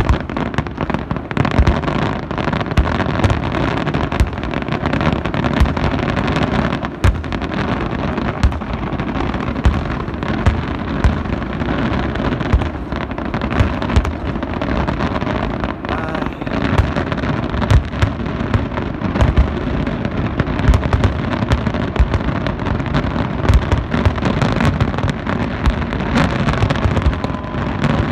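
Aerial firework shells bursting in a rapid, continuous barrage, with many sharp bangs and crackling over a constant rumble.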